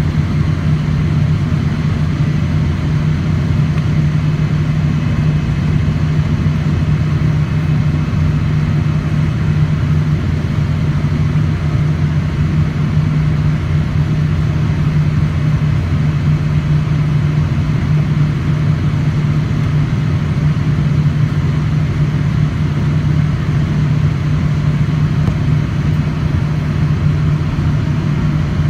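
Boeing 787-9 cabin noise during the ground roll before takeoff: the jet engines running at taxi power, a steady low hum and rush heard through the cabin wall over the wing.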